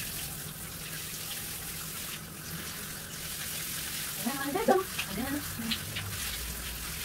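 Steady hiss of shower water running. A brief voice comes in about four seconds in.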